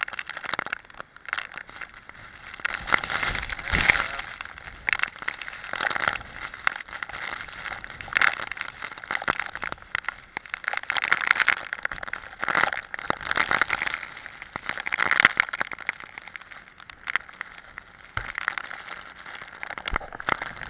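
Hurricane wind driving heavy rain against the camera: a dense crackle of raindrops striking the lens and housing, swelling and easing in gusts.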